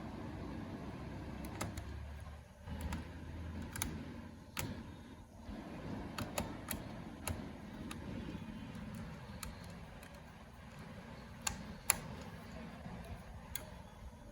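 Scattered small clicks and taps of a screwdriver and small metal parts being handled while an SSD is fitted into a laptop, irregularly spaced, over a steady low hum.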